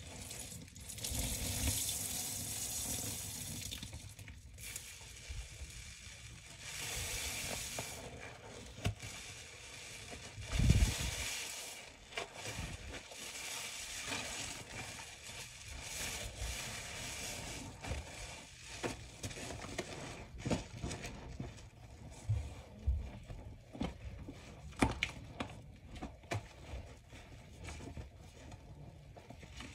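Soapy bath sponges being squeezed and wrung by rubber-gloved hands in thick suds: wet squelching and hissing, crackling foam in repeated waves, with a single dull thump about eleven seconds in.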